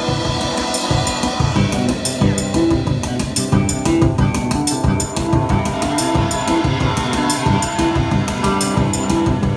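A live three-piece rock band plays an instrumental passage without singing: a drum kit with steady cymbal and snare hits, electric guitar and bass guitar. The low end fills out about a second in.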